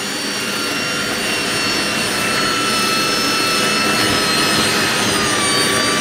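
Cordless drill spinning a flexible-rod dryer vent cleaning brush inside the vent duct: a steady motor whine that drifts slowly lower in pitch, over a steady rush of air blowing out of the vent from the running dryer.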